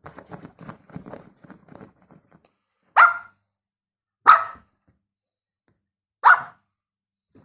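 Toy poodle barking three times, single sharp yaps spaced one to two seconds apart, after a run of soft quick taps.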